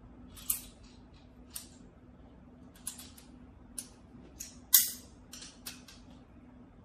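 Irregular sharp clicks and taps of hard plastic and metal parts being handled during assembly of a slingshot rifle's grip and stock, with a hex key working in a stock fitting. About eight clicks, with one much louder knock nearly five seconds in.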